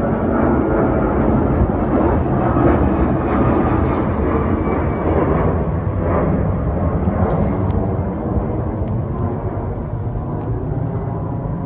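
Airbus A330-300's jet engines at takeoff power, a loud steady rumble that eases off slowly over the last few seconds as the airliner moves away.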